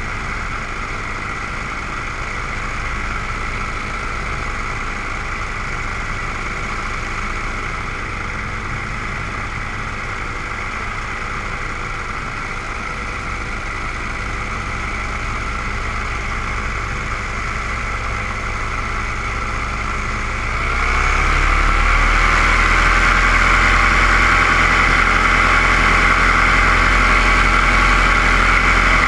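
Quadcopter drone's electric motors and propellers humming steadily, heard up close from its onboard camera. About twenty seconds in the pitch rises and the hum grows louder as the motors speed up.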